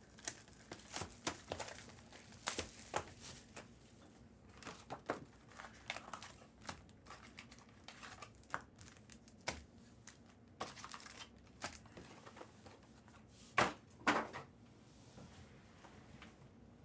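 Trading card packs being opened and cards handled: crinkling and tearing of pack wrappers with many small scattered clicks and snaps, and two louder snaps close together near the end.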